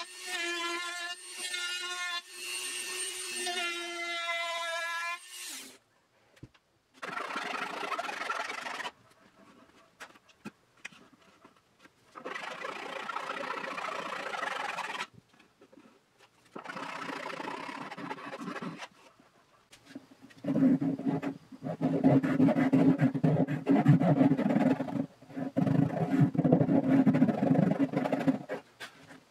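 A handheld rotary tool with a sanding drum runs with a steady whine for about five seconds, grinding the excess top wood flush at the edge of a mandolin body. Then a hand tool rubs along the wooden body edge in three passes of a couple of seconds each, followed by louder, coarser rubbing over the last eight seconds or so.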